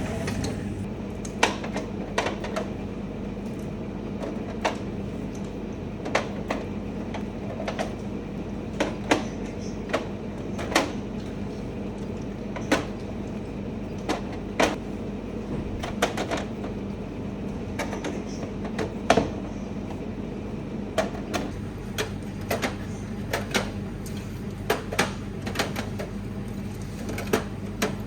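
Scattered light knocks and clicks, about one every second or two and coming more often near the end, over a steady low hum.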